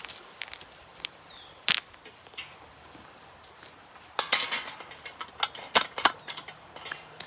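Dry twigs and forest litter crackling and snapping in a string of sharp cracks, one about a second and a half in and a dense cluster in the second half.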